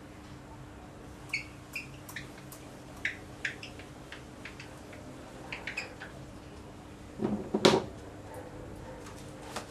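A pen writing, its tip clicking against the surface in a scatter of short ticks, with one louder knock about three quarters of the way through.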